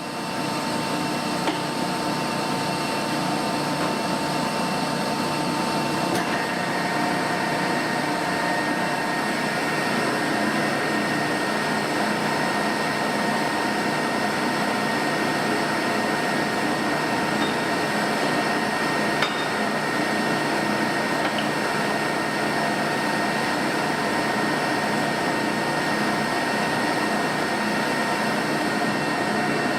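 Leblond sliding gap bed lathe running under power, a steady geared whine with the carriage fed along by the half nut; a higher whine joins about six seconds in.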